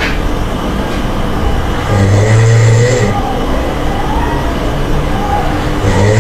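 A monkey snoring in a slow rhythm. A loud snore comes about two seconds in and lasts about a second, softer breathing follows, and the next snore starts near the end, about four seconds after the first.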